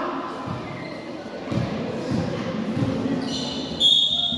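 A referee's whistle blown with a steady high tone near the end, the loudest sound here, over players' voices echoing in a large gym hall. A single thud comes about a third of the way in.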